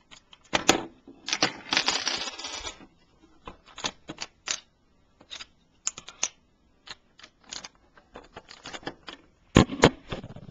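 Plastic Lego pieces clicking and clattering as a Lego gumball machine is handled to show its mechanism: scattered sharp clicks, a denser clatter about two seconds in, and two loud knocks near the end.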